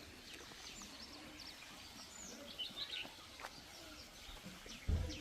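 Faint, scattered chirps of small birds over a low outdoor background, with a short low thump near the end.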